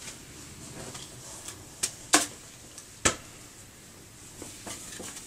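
Clothes being handled and unfolded: soft rustling of fabric, with a few short sharp rustles or snaps, the loudest about two seconds in and another about three seconds in.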